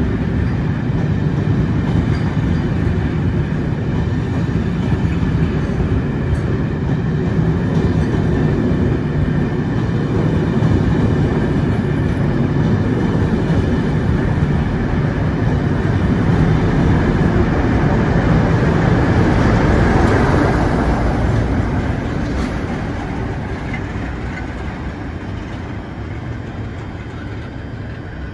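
Rake of passenger coaches running past at speed, the steel wheels rumbling on the rails. The noise holds steady for about twenty seconds, then fades away as the last coach draws off.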